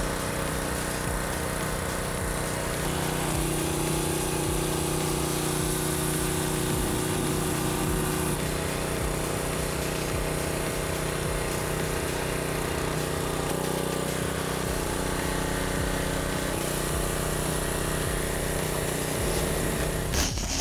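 Kärcher G 2200 gas pressure washer with its four-stroke engine running steadily under load while the wand sprays water through the black soap nozzle, the spray hissing against a vehicle's body panels.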